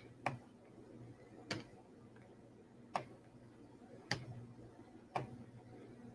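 Five sharp single clicks, spaced unevenly about a second or a little more apart, typical of a computer mouse being clicked, over a faint steady low hum.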